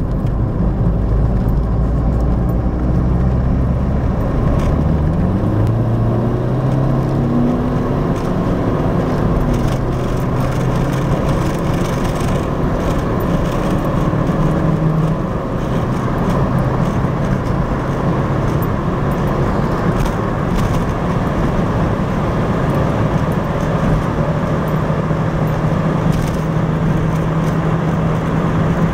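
SEAT Ibiza's 1.9 SDI diesel engine, turbocharged with a KKK BV43, heard from inside the cabin under hard acceleration. The engine note climbs in pitch, dips briefly about halfway, then runs on at high revs near 5000 rpm.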